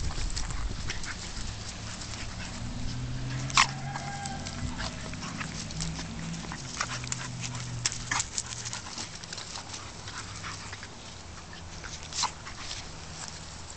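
An American Staffordshire terrier and a pitbull puppy play-fighting, with low growling through the first half. A few short, sharp yelps come at about four seconds in, around eight seconds, and near the end.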